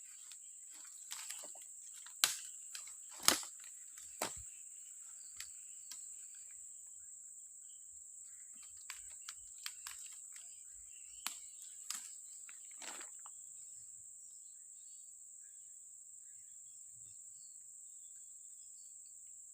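A steady high-pitched insect trill, as from crickets, with scattered sharp clicks and knocks from close handling. The loudest knocks come about two and three seconds in, and they thin out after about thirteen seconds.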